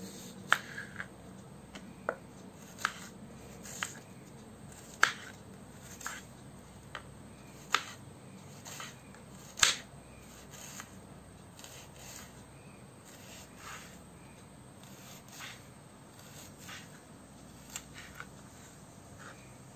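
Kitchen knife chopping a red onion on a plastic cutting board: irregular sharp knocks of the blade against the board, about once a second and loudest in the first half, softer and more scattered later.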